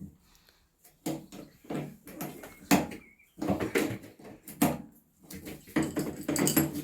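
Irregular clattering and knocks of hand tools and metal parts being handled, in bursts of differing length with short pauses between.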